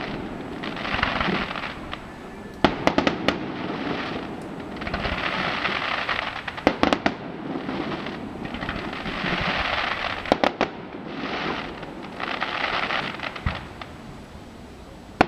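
Fireworks display: sharp shell bursts, several in quick clusters of bangs, alternating with stretches of crackling hiss from the bursting stars, each lasting a second or two.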